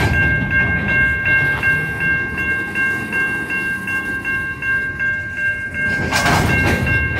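Type 3 Safetran electronic crossing bell ringing steadily, its tone repeating about three times a second, over the low rumble of loaded coal hopper cars rolling slowly through the crossing. A short burst of noise comes about six seconds in.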